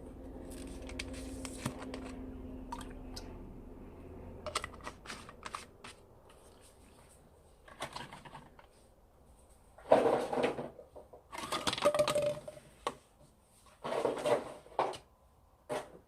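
Slime being handled and squeezed by hand: scattered small clicks and pops, then several louder squelching bursts in the second half, the loudest about ten seconds in. A low steady hum runs for the first few seconds.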